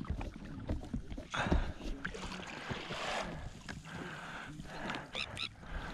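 Birds calling in a quick run of short, high cries about five seconds in, over a steady low hum and a rushing noise.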